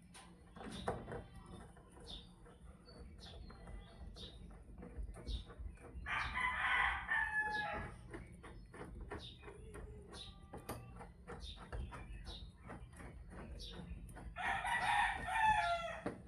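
A rooster crows twice, with a long call about six seconds in and another near the end. Light clicks and taps sound between the crows.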